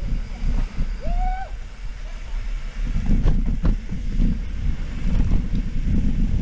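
Mountain bike running down a rough dirt trail: wind buffeting the camera microphone over the steady rumble of tyres and rattling bike. There is a brief squeal about a second in and a couple of sharp knocks about three seconds in.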